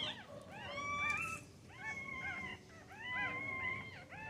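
A litter of newborn puppies crying: several high-pitched squeals overlap, each rising and falling, coming in clusters with short lulls between them.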